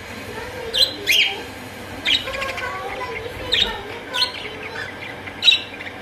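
A small flock of budgerigars chirping: sharp, quick calls every second or so over a soft, continuous warbling chatter.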